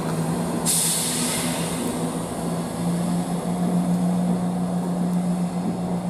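Diesel train engine running with a steady low hum. A sharp hiss cuts in about a second in and fades within a second.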